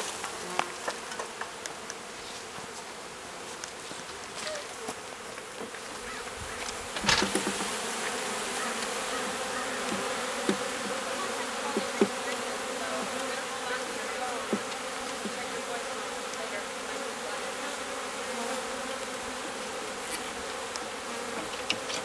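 Honey bee swarm buzzing in a steady, dense hum. A sharp thump comes about seven seconds in, the hum is louder after it, and a few light knocks follow.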